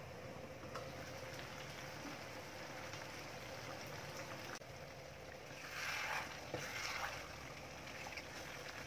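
Chicken curry cooking in a pot, with a steady bubbling hiss that grows louder about six to seven seconds in.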